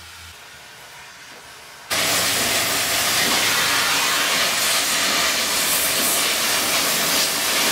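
Gas welding torch flame hissing steadily while a steel frame joint is welded with a filler rod. The loud hiss starts abruptly about two seconds in, after a faint background.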